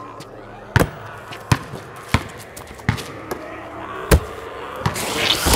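Basketball bouncing on a hard court, about seven sharp bounces roughly three-quarters of a second apart. A rising rush of noise swells near the end.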